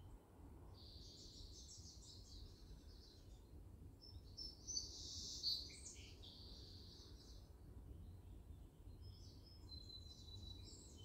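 Several songbirds singing in early-morning birdsong. There is a dry trill in the first few seconds, a louder song phrase about five seconds in, and thin, high, drawn-out whistles near the start and the end, all over a low, steady background rumble.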